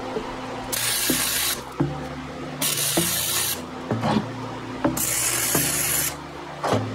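Lincoln Electric Weld Pak HD wire-feed welder arcing on steel in three short welds: three bursts of crackling hiss, each about a second long.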